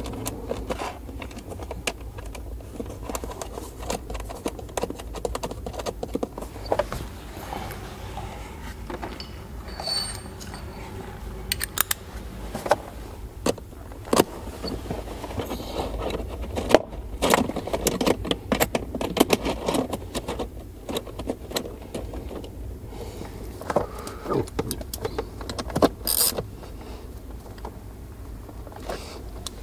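Irregular clicking, clinking and scraping of small metal fasteners and tools being handled by hand while a power cable is fastened to a terminal.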